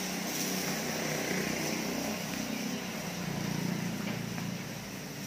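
A motor running steadily, a low hum under a hiss, a little louder for a second or so past the middle.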